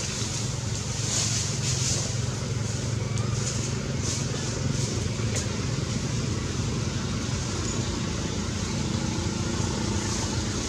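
Steady low rumble of outdoor background noise with a faint hiss above it, like distant engine or traffic noise.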